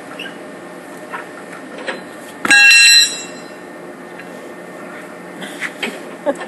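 Steady hum of workshop machinery, broken a little over two seconds in by a loud, high-pitched metallic squeal lasting about half a second. A few light clicks of tools on metal come near the end.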